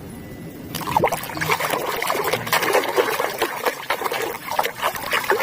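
Water splashing and trickling as a plastic animal toy is rinsed clean, starting just under a second in.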